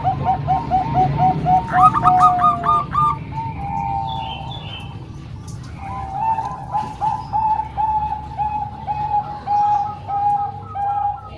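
Several zebra doves (perkutut) cooing at once in overlapping runs of short, repeated notes, about four a second. The runs thin out for a few seconds in the middle, then build up again.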